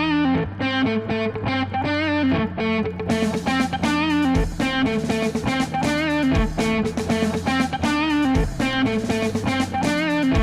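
Background music: electric guitar melody with vibrato over a steady bass, with a low beat about every two seconds.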